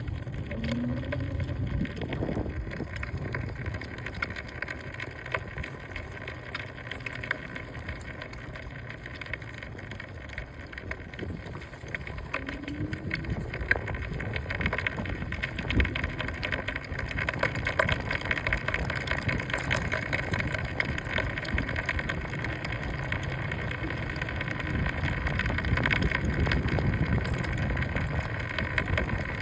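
Rattling from a vehicle's front wheel while it is being ridden or driven: a run of irregular clicks and knocks over steady road and engine noise. The rattle has been there since the vehicle was new.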